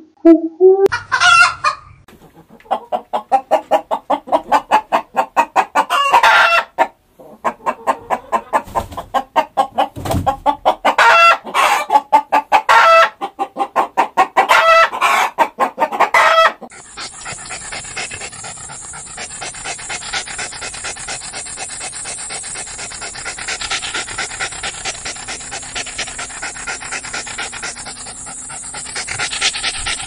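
Domestic rooster clucking in a rapid run of repeated calls, with louder crowing calls among them, after a pigeon's last coo. Just past halfway it cuts to a softer, steady sound of a dog panting.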